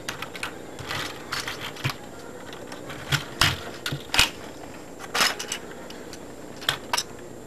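Irregular clicks and taps of plastic LEGO pieces as a built model is handled, with a few sharper knocks around three to five seconds in.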